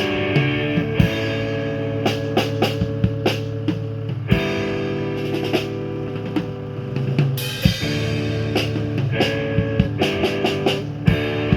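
Live rock band playing: drum kit hits over sustained guitar chords.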